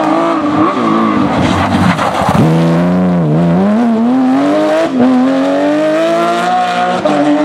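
Porsche 911 GT3 rally car's flat-six engine at high revs: the pitch falls sharply about two and a half seconds in as the car slows, then climbs steadily under acceleration, with a brief gear change near the end.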